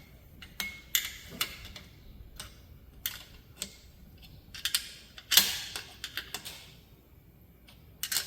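Irregular clicks and light knocks from hands adjusting the plasma cutter's torch and its mount, with one louder knock a little past five seconds in that rings briefly.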